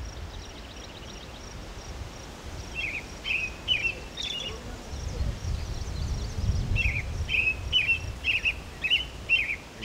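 A songbird calling repeatedly in short chirps, about two a second, starting a few seconds in, over a low background rumble.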